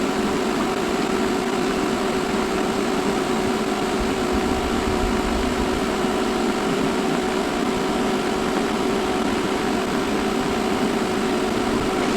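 TIG welder running, giving a steady buzzing hum while a seam is welded on thin sheet metal.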